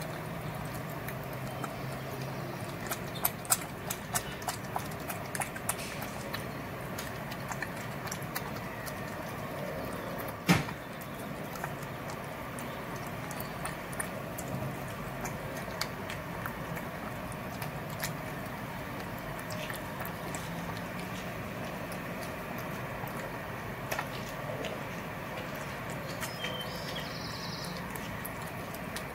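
Cat eating dry kibble from a plastic bowl: irregular crunches and small clicks of teeth and kibble against the bowl, thickest a few seconds in, with one louder knock about ten seconds in.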